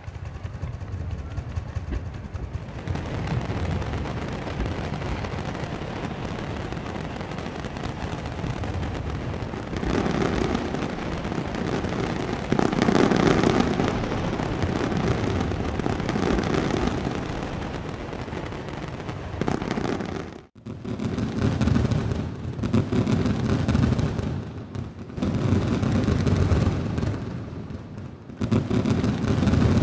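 Fireworks display: a dense rapid-fire barrage of crackling and popping with loud booming bursts. After a brief break about two-thirds of the way in, shells go on booming one after another every second or two.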